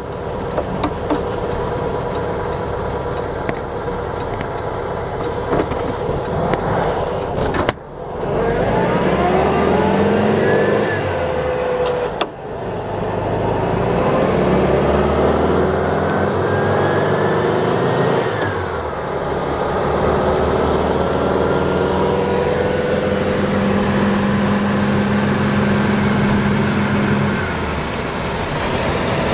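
Freshly tuned 1956 Volkswagen Beetle's air-cooled 1200cc flat-four, heard from inside the car while driving through the gears. The engine note cuts out briefly at two gear changes, about eight and twelve seconds in, and climbs in pitch after each. It drops again past the middle and then holds steady at cruising speed.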